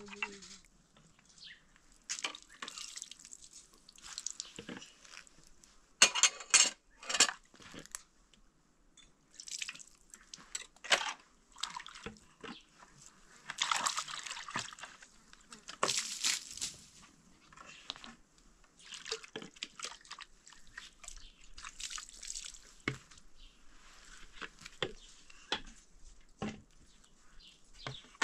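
Hand-washing dishes in a plastic basin of water: water splashing and dripping in irregular bursts, with short clinks as plates and spoons are handled and set down.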